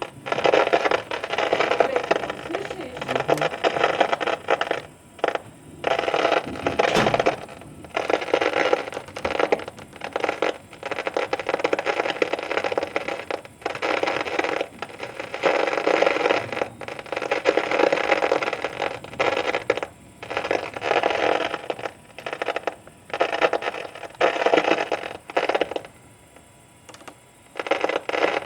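Thunderstorm noise, a loud rushing hiss of rain and wind. It comes in bursts broken by short, abrupt gaps.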